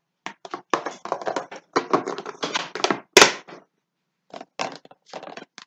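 Plastic clip-lock storage containers being handled: quick runs of clicks and rattles from the lids and clips, with one sharp knock about three seconds in.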